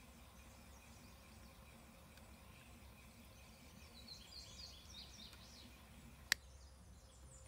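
A single sharp click of the electric spinning wheel's speed-controller switch being flicked, a little over six seconds in. Before it, faint outdoor background with birds chirping for a second or so in the middle.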